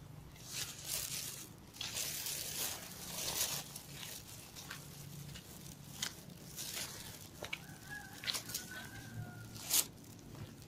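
Irregular rustling and crackling, with a few sharp cracks, the loudest near the end. A faint drawn-out rooster crow sounds in the background about eight seconds in.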